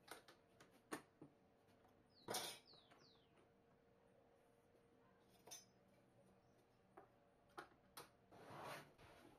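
Faint clicks and taps of a steel ruler and a metal try square being set down and shifted on the metal sole of an inverted electric planer and its plywood support, with a louder handling sound between two and three seconds in and a short scraping slide near the end.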